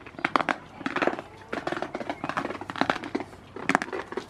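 Goats moving and feeding at close range: a rapid, irregular run of clicks, taps and short scuffs.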